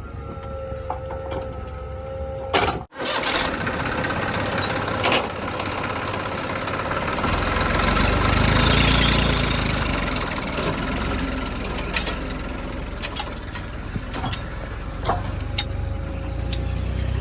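Diesel engine of a JCB 3DX backhoe loader running while it works, the engine note cutting off abruptly about three seconds in, then swelling and falling back under load around the middle, with a few short metallic knocks.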